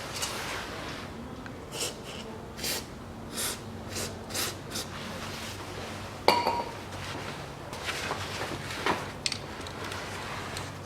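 13 mm socket wrench undoing the nuts of a gear-shift linkage support under the car: a run of short metallic strokes a little under a second apart, then a sharp ringing metal clink just past halfway.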